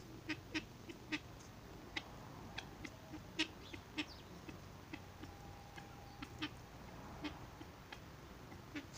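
Helmeted guineafowl foraging, giving faint, short, scattered clucks at irregular intervals, one to three a second.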